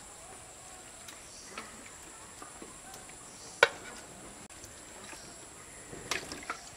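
A spoon knocking against the aluminium pot and the bowl as curry is served out: one sharp click about halfway through and a few lighter knocks near the end.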